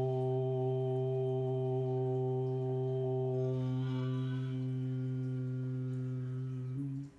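A man's voice holding one long, steady chanted tone on a single pitch. Near the end the tone rises briefly and breaks off.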